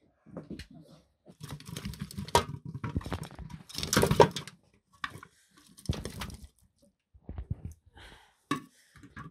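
Metal cooking pots and lids being handled: scraping and clinking noises, loudest about four seconds in, followed by a few sharp clicks.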